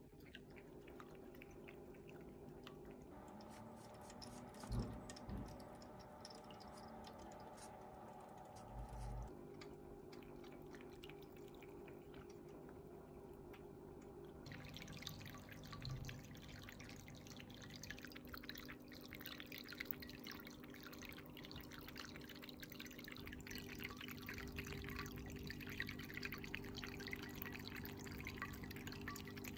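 A PetSafe Avalon ceramic cat drinking fountain running: water trickling and dripping over its spout above a low steady hum, as a Maine Coon cat laps at the stream. About halfway through the water sound turns louder and brighter, and a few soft knocks come in the first half.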